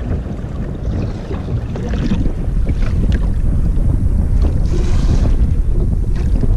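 Wind buffeting the microphone over the rush and slap of choppy sea against the hull of an outrigger boat under way, with a stronger splash about five seconds in.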